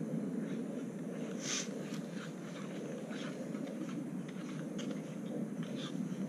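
Steady wind noise, with faint scattered rustles and clicks, one a little louder about a second and a half in.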